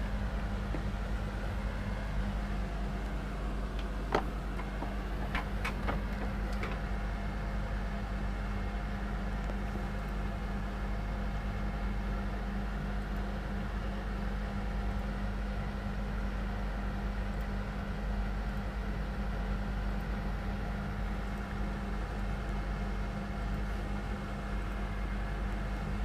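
Steady background hum of room and equipment noise, with a few faint clicks about four to seven seconds in.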